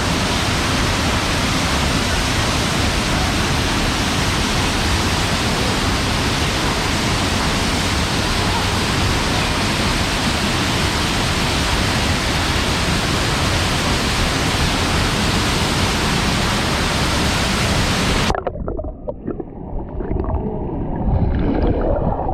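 Waterfall pouring: a loud, steady rush of falling water close to the microphone. About eighteen seconds in it cuts off suddenly, leaving a much quieter, uneven rush.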